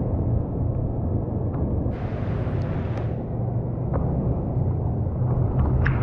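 Water sloshing against a surfboard under a steady low rumble of wind on the microphone, with a brief splash about two seconds in as the board is turned.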